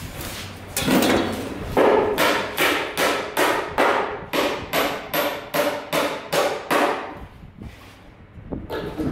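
Steady hammering, about three blows a second with a short ring after each, stopping about seven seconds in.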